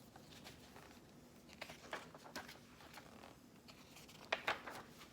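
Picture book being opened and its pages turned: a few soft paper rustles and light clicks about two seconds in, and a louder pair near the end.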